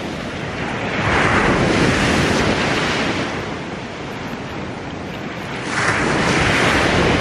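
Surf breaking on a beach: two waves rush in and wash back, about five seconds apart.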